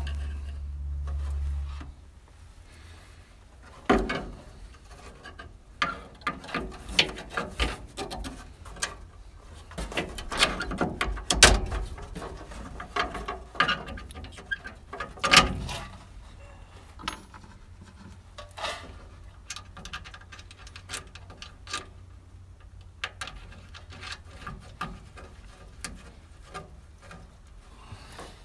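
Scattered clicks, taps and rubbing as hands work a small Airtex E8090 electric fuel pump, its metal fittings, hose and wires into place against a steel truck frame rail. The sounds are busiest in the first half, with a few sharper knocks. A low hum runs for the first two seconds.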